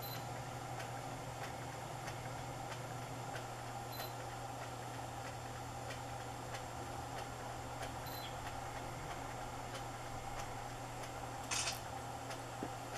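A steady low hum with faint ticks about twice a second, and one brief, sharp noise near the end.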